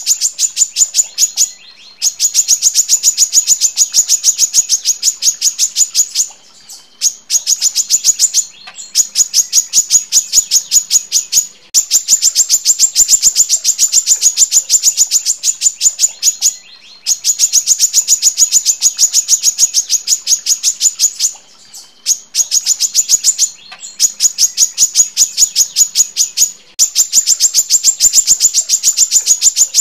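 Female brown-throated sunbird singing long, rapid trills of sharp high notes, run after run with short pauses of under a second between them.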